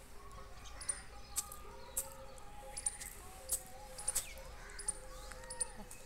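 Birds chirping: short, sharp high chirps repeating about every half second, over a faint steady background.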